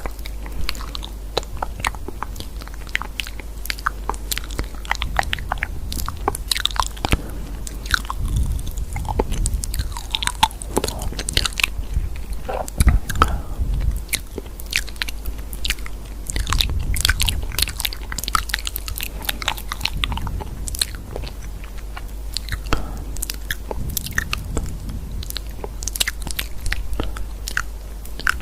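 Crunchy biting and chewing, many irregular crisp crunches close to the microphone, over a steady low hum.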